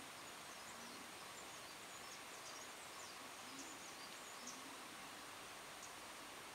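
Faint, steady outdoor background hiss, with a run of faint, quick, high chirps through the first half and one more near the end.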